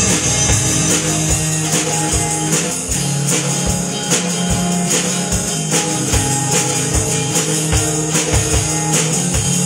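Electric guitar and a Peavey drum kit playing a rock instrumental break without vocals, the drums keeping a steady beat.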